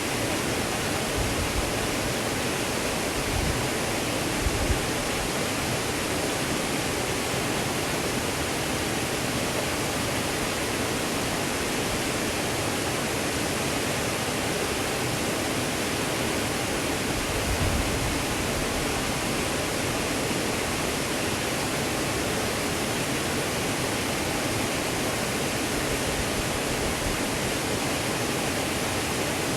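Waterfall, a steady even rush of falling water, with a few brief low thuds a few seconds in and again just past the middle.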